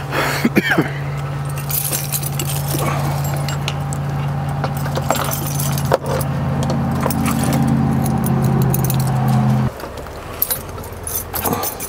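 A big ring of keys jangling and clinking as keys are tried one after another in an excavator's ignition switch. Under it runs a steady low hum that cuts off abruptly near the end.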